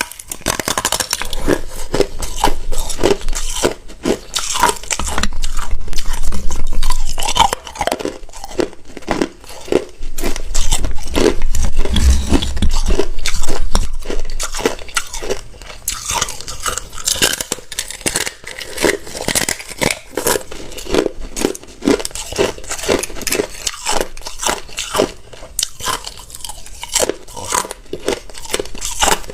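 Hard ice being bitten and chewed close to the microphone: a dense run of sharp cracking crunches, with louder bouts of crunching about five and ten seconds in and lighter, scattered crunches after.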